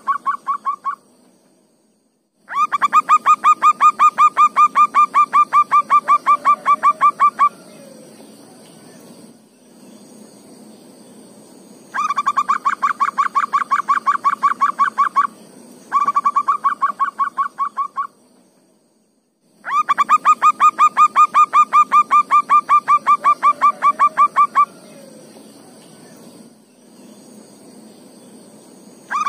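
Zebra dove (perkutut) calling: four bouts of rapid, evenly repeated cooing notes, each bout a few seconds long, with pauses between them.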